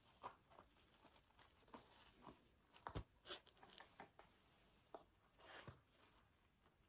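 Faint handling noise from a pair of sneakers being turned over in the hand: scattered soft rustles and light clicks, the loudest about three seconds in and again just before six seconds.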